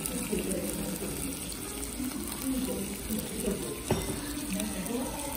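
Spaghetti Napolitan sizzling on a hot iron serving plate: a steady hiss, with faint voices in the background and a single sharp click about four seconds in.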